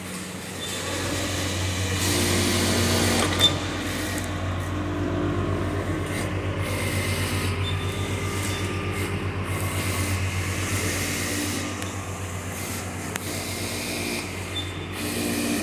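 Industrial single-needle lockstitch sewing machines (JIN L1C) stitching, a fast even rhythm that swells and eases as the fabric is sewn in runs. There is one sharp click about three and a half seconds in.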